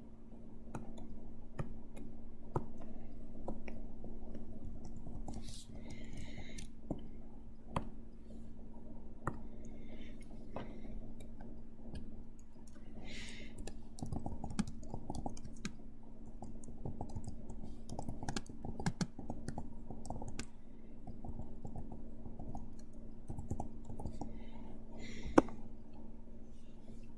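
Computer mouse clicks and keyboard typing: scattered sharp clicks, irregular and spread throughout, over a steady low hum.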